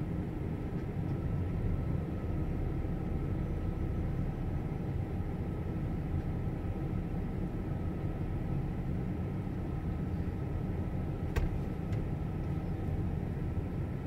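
Steady low rumble of idling vehicle engines, with a faint steady hum above it and one sharp click about eleven seconds in.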